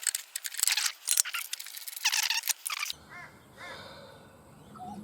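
Irregular clicks and metallic scrapes of a part being screwed into place on a ride-on mower engine, ending about three seconds in. Birds chirp faintly after that.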